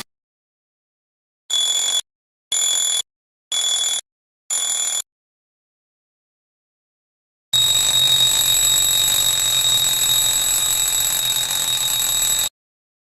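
Electronic alarm clock sounds: four short high-pitched beeps about one a second, then after a pause of a couple of seconds a continuous high alarm tone held for about five seconds before cutting off.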